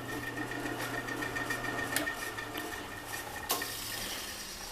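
Old Delta Rockwell drill press running free, its motor and spindle giving a steady hum and a high whine, with a couple of light clicks; the hum drops a little about two seconds in.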